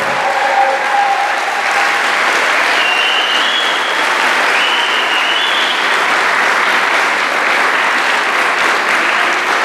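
An audience of children and adults applauding, steady clapping throughout.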